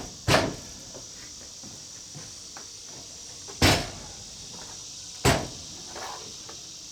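Three loud knocks, the first near the start, then two more about a second and a half apart later on, over a steady high-pitched insect drone.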